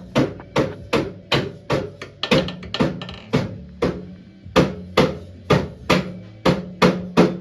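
Background music with a fast, steady drum beat over a sustained bass line, with a quick drum fill about two seconds in.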